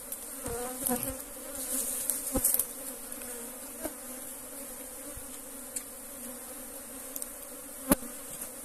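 Honeybees from an opened tree-trunk hive buzzing steadily as their combs are cut out. A few sharp knocks and clicks sound over the hum, the loudest near the end.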